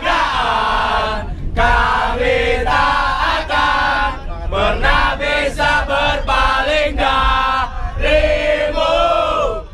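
Crowd of football supporters singing a terrace chant together in short repeated phrases, led by a capo, packed inside a train carriage, over a steady low rumble.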